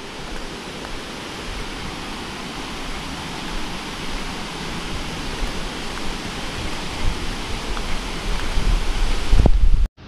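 Steady rushing of flowing water, an even hiss with no pauses. A low rumble grows beneath it near the end, and the sound cuts off abruptly just before the end.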